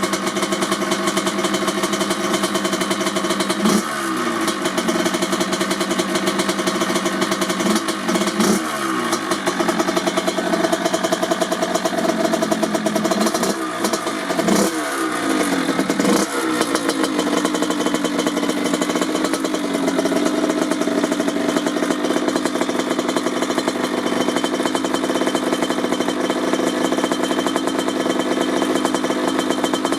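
1997 Kawasaki KX80's single-cylinder two-stroke engine, fitted with a DEP silencer, idling with a few short throttle blips: one about four seconds in, two near eight seconds and a cluster in the middle. After the blips it settles back to a steady idle.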